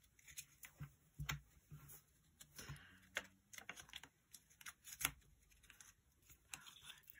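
Faint, scattered clicks and rustles of cardstock being handled as fingers press and hold the freshly glued corner flaps of a small paper box lid against the tabletop. The sharpest tick comes about five seconds in.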